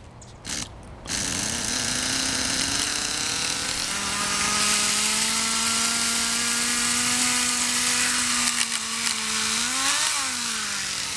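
Small .11 nitro glow engine of a Kyosho Nitro Blizzard RC tracked vehicle, starting about a second in and then running steadily at a high, even pitch. Near the end it is revved once: the pitch rises and falls back.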